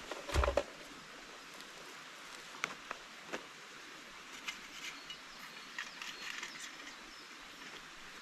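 Forest ambience with a steady insect hiss, a dull thump about half a second in, and scattered small clicks and snaps after it.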